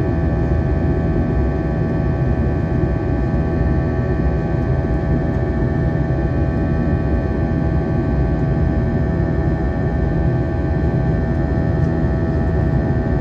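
Airliner's turbofan jet engines during the climb after takeoff, heard inside the cabin: a steady low rumble with several steady whining tones above it.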